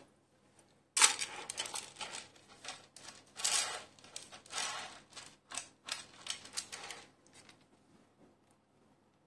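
Handling sounds of a gold-plated nakshi necklace with CZ and uncut stones being arranged on a display bust: irregular metallic clinks and rustles starting abruptly about a second in and dying away after about six seconds.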